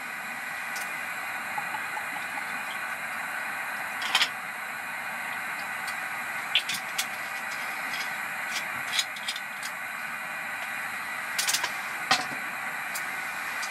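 Steady hiss of a compact heater running, with several sharp clinks and knocks from a bottle and a stainless steel mug of ice being handled on the table.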